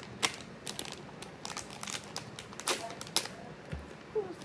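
Crinkling and crackling of a small mystery blind bag's packaging as hands pull and tear it open, with a couple of sharper crackles about two-thirds of the way through.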